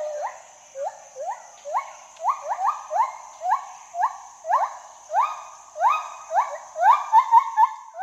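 Gibbon calling: a series of short rising hoots, about two a second, that speed up into a quick warbling run near the end.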